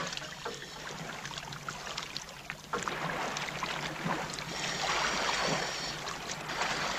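Sea water splashing and sloshing around scuba divers as they slip off a boat's side into the water, getting louder about three seconds in.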